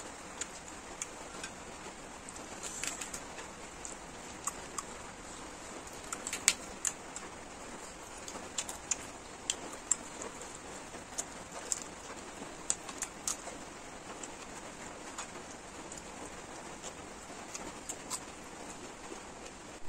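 Heavy rain falling outside as a steady hiss, with many irregular sharp clicks on top, the loudest about six seconds in.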